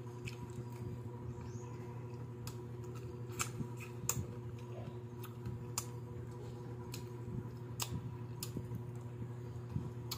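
Close-up eating sounds: chewing crispy fried chicken neck, with scattered sharp mouth clicks and smacks, over a steady low hum.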